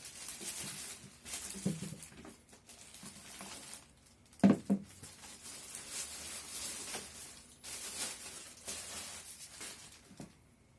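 Plastic packaging rustling and crinkling in several stretches as the sterilizer's plastic parts are handled and unwrapped, with one sharp knock of hard plastic about four and a half seconds in.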